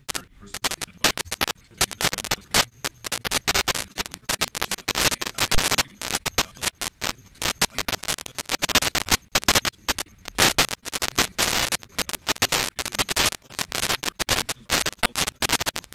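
Loud, dense, irregular crackling and scratching noise that starts abruptly and keeps on, typical of a corrupted or glitching recording.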